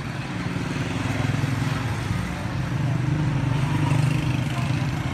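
A small motorcycle engine running close by, growing louder up to about four seconds in and then easing off.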